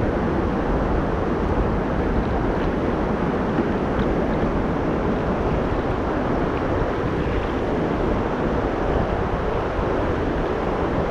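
Steady, even rushing noise of wind on the microphone and moving river water around a kayak, with a low weir spilling water ahead.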